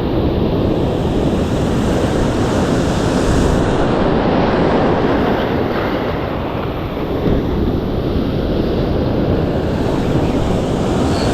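Surf breaking and wind buffeting the microphone, a loud steady rush.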